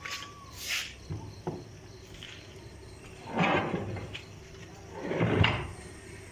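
A heavy steel machine being shoved onto a wooden truck bed: two loud scraping bursts, about three and a half and five seconds in, each lasting under a second.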